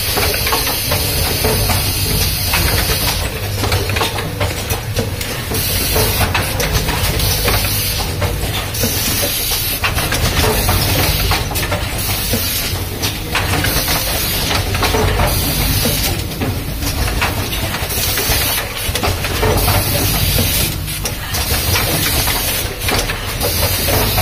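Automatic rapid test kit assembly machine running, with a steady low hum and short hisses repeating irregularly every second or two.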